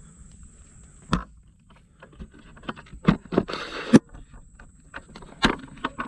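Hiker's footsteps with scattered knocks and scuffs, and a brief rustling scrape a little past the middle that ends in the loudest knock.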